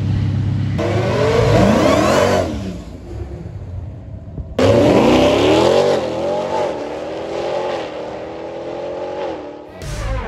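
Dodge Durango SRT's V8 accelerating hard down a drag strip, its note climbing in pitch and fading as it pulls away. The sound is cut in two takes: a short rising run about a second in, then a second, louder run starting near the middle.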